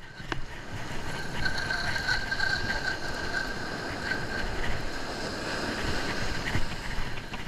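A conventional saltwater reel is cranked steadily to bring in a hooked fish, under a constant wash of wind and surf. A faint steady whine runs through the first half.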